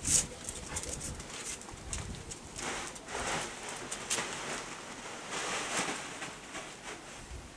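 Two Australian kelpies and a beagle scuffling in play on a dog cushion, with rustling and scrabbling noises in two short noisy spells and no clear barks.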